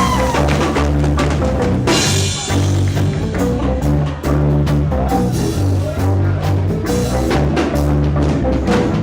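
Live band playing an instrumental passage: a drum kit with bass drum and snare over a pulsing bass line, in a rock style.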